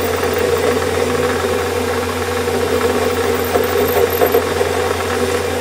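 Warco metal lathe running at a steady speed, its motor and drive giving a constant hum, while the tool on the compound slide faces down the end of a grub screw held in the chuck.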